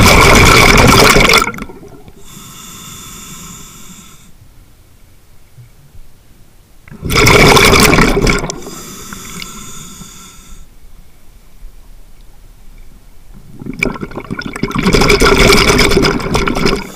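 Scuba diver breathing underwater through a regulator. Three loud rushes of exhaled bubbles come about seven seconds apart, and the first two are each followed by the softer hiss of an inhale through the demand valve.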